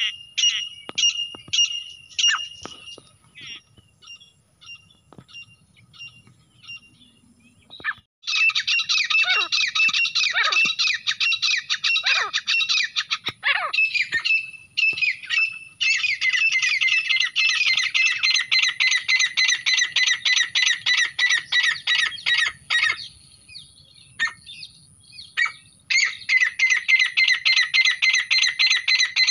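Recorded grey francolin calls of the kind played for hunting. A run of ringing notes, about three a second, fades out, then about eight seconds in loud, dense, rapid calling starts in long bouts, with a pause of a few seconds near the end.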